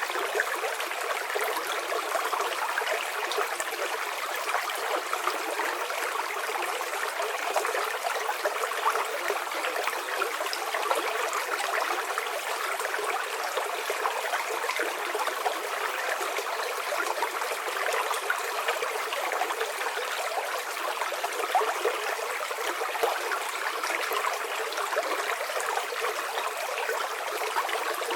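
River water flowing over rocks, a steady splashing, babbling rush of running water.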